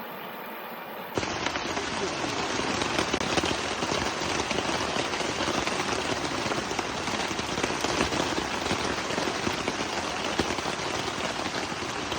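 Heavy rain pattering densely, starting suddenly about a second in.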